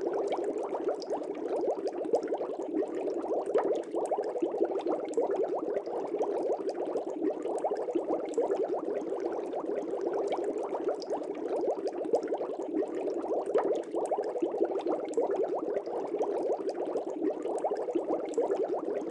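Steady, continuous bubbling water: a dense stream of small bubbles popping without pause, as in an aquarium.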